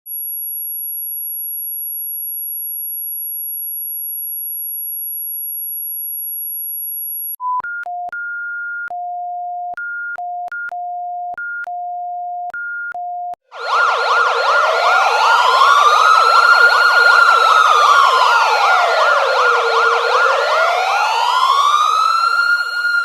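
Electronic emergency-alert tones. First a single steady, very high-pitched tone for about seven seconds. Then a run of beeps stepping back and forth between a higher and a lower pitch for about six seconds. Then, about thirteen seconds in, a louder siren starts, wailing slowly up and down over a harsh buzzing tone.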